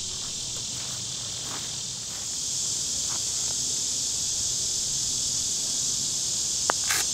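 A steady chorus of summer insects shrilling high and continuously, slightly louder after a couple of seconds. Near the end, a single short click of a putter striking a golf ball.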